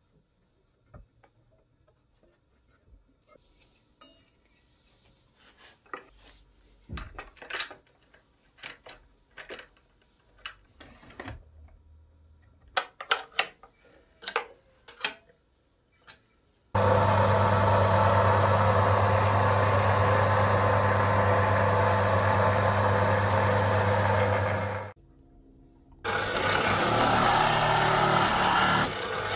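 Scattered clicks and knocks as an electric motor is handled and fitted onto a plywood base. Then an electric machine runs steadily with a strong low hum for about eight seconds and stops suddenly. About a second later a drill press starts boring into plywood with a Forstner bit.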